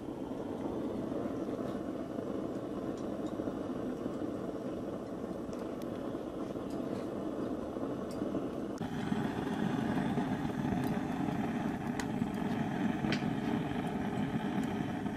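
Steady low rumbling background noise with a few faint clicks; its character shifts about nine seconds in.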